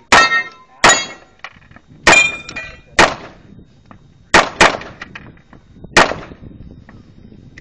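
Gunshots fired in an uneven string, about seven in all, with metal steel targets ringing after several of the early hits.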